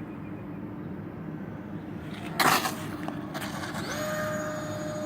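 Electric ducted-fan motor of a radio-controlled Airbus A320 model jet spooling up. A whine starts near the end, rises briefly and then holds steady, over a steady low hum. A brief loud rush of noise comes about two and a half seconds in.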